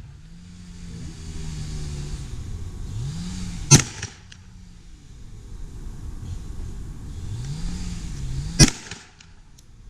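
Two single gunshots about five seconds apart, sharp and the loudest sounds here, with a low motor hum rising and falling in pitch underneath.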